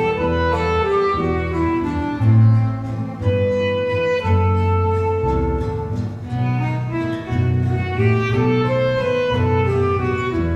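A small acoustic band playing: an acoustic bass guitar plucks a bass line under a melody held in long, smoothly moving notes.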